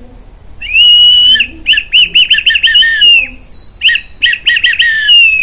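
Small wooden bird whistle blown to imitate a bird's song: one held whistle note, then a quick run of swooping chirps, a short pause, more chirps, and a last held note that slides down at the end.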